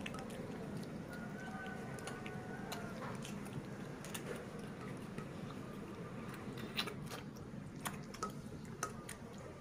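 A piglet sucking milk from a baby bottle, with the baby monkey beside it also suckling: irregular wet sucking clicks and smacks at the bottle nipples, more frequent in the second half, over a steady low background noise.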